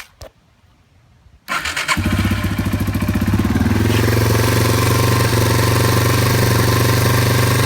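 1990 Yamaha TW200's air-cooled single-cylinder four-stroke engine, on choke, starting about a second and a half in. It cranks briefly, catches at once, and settles into a steady, even run.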